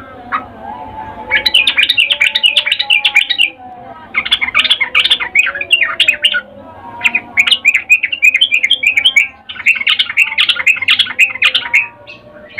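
Yellow-vented bulbul (trucukan) calling in four bouts of about two seconds each, every bout a fast, chattering run of short notes. It is presented as a female's in-heat call to a male, used as a lure to set other trucukan singing.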